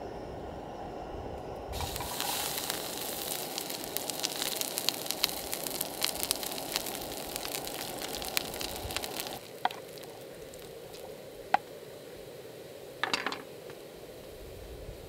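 Olive oil sizzling and spitting in a pan as ajillo ingredients fry. It starts suddenly about two seconds in, then drops to a quieter sizzle with a few separate pops after about nine seconds.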